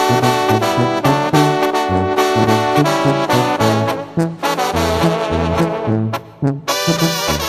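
Instrumental introduction of a Mexican song, led by brass horns over a bass line that steps back and forth between notes, with a brief drop about six seconds in before the band comes back fuller.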